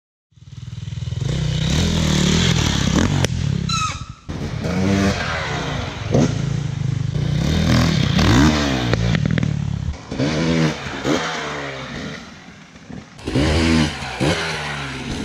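Enduro dirt bike engine revving up and down over and over as it is ridden, cutting in sharply just after the start.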